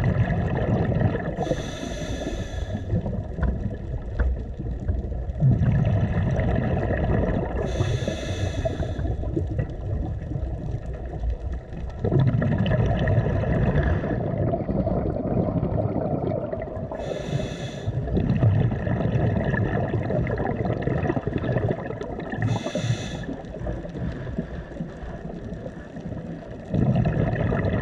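Underwater sound of a scuba diver's regulator breathing: four bursts of exhaled bubbles, each about a second long, over a steady low rumble of water.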